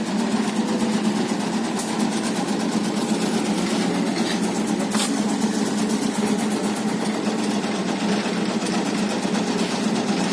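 Tobacco-cutting machine running steadily: a continuous mechanical hum with a fast, even clatter from the cutting action.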